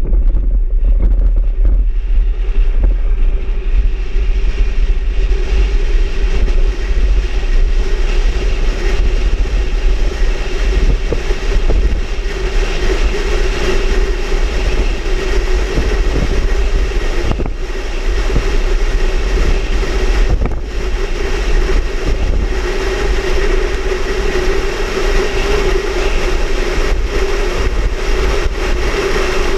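Vehicle driving at speed: a steady engine and road drone over a heavy low rumble, with a hiss that builds over the first few seconds and then holds.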